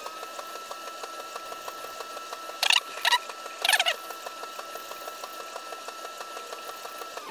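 Fast-forwarded sound of a straight razor being honed on a water stone: rapid, even ticking of strokes over a steady high hum that the speed-up has raised in pitch. A few short, louder bursts come about three seconds in.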